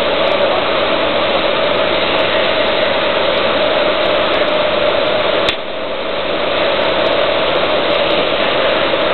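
Steady machine noise from a CNC glass cutting table. About five and a half seconds in there is a click, after which the noise drops and then builds back up over a second or so.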